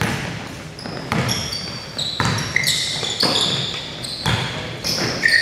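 Basketball dribbled on a gym floor, bouncing about once a second with a ringing echo in the hall, while sneakers squeak in short high chirps on the floor.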